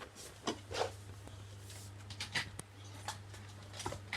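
Scattered light rubs and clicks as small fidget toys are handled, over a steady low hum.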